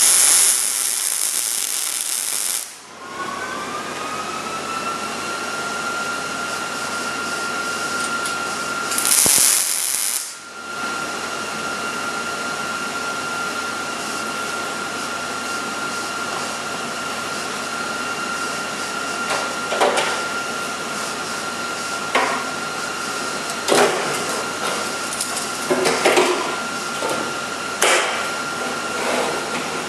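Two short bursts of MIG welding on sheet metal, each a few seconds of bright sizzle, with a steady high whine coming in after the first weld and holding throughout. Scattered sharp clicks and knocks follow in the second half.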